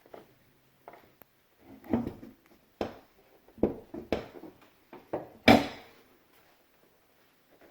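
A handful of irregular knocks and clunks, about five, spaced unevenly over a few seconds, the loudest one near the end.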